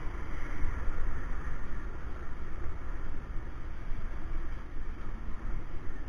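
Street motorcycle running at low speed, a steady low rumble of engine and road noise.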